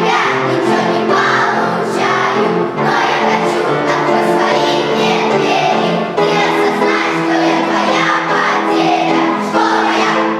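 A group of children singing together to a musical backing track.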